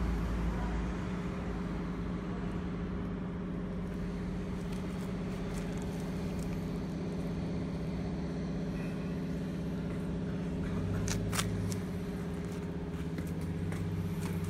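Kubota Midy TMA21 mini tiller's 2.2 hp single-cylinder engine running steadily without load, its tines clear of the ground. A single sharp click sounds about eleven seconds in.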